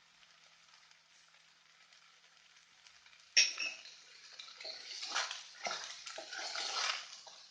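Faint steady hiss from the pot, then a little over three seconds in a sharp clank of a spoon against the cooking pot, followed by irregular scraping and clinking as rice and fried meat are stirred together.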